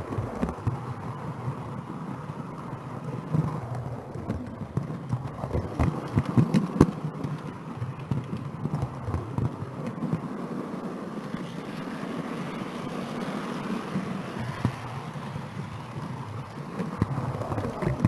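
Model train running on the layout, picked up close by a camera riding the track: a steady rumble of wheels and motor, with irregular clicks and rattles from the track.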